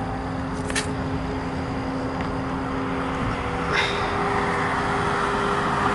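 Steady engine rumble with two constant hums and a few faint clicks, growing slightly louder in the second half.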